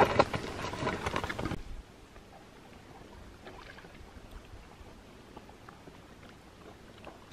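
A rush of noise like wind on the microphone, cutting off suddenly after about a second and a half. Then faint open-air quiet with a few small clicks from fishing line being handled.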